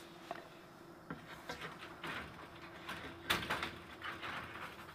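Faint clicks and rustles of hand work with clamps and wood against chicken wire, with one sharper click a little past three seconds in.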